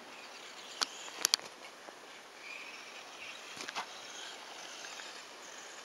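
1:18-scale RC off-road car's small motor whining faintly as it drives over the track, with a few sharp clicks about a second in and again a little past halfway.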